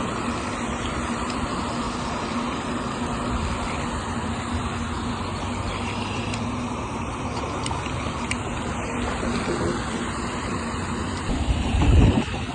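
Steady outdoor road-traffic noise with a faint constant hum, and a loud low rumble on the microphone near the end.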